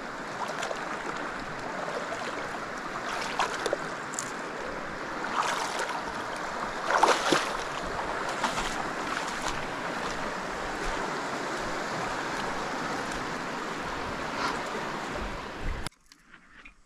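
Steady rush of river water, with a few brief splashes standing out along the way. It cuts off suddenly about a second before the end.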